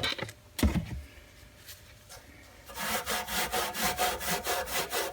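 A single thump about half a second in. A little past halfway, quick, even back-and-forth hand scrubbing begins on the metal toolbox and keeps going.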